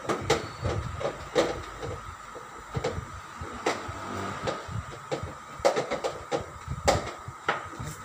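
Irregular knocks and clatter of plastic and sheet-metal parts being handled on the chassis of a Carrier window-type air conditioner, a dozen or so sharp knocks, the loudest near the start and about two-thirds of the way through.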